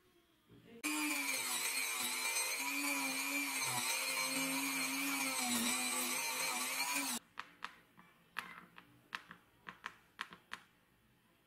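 Small rotary tool with a cut-off disc running and cutting a small screw held in pliers; it starts about a second in, and its pitch wavers under load before it stops abruptly. A series of light clicks follows as small screws are set down on the bench.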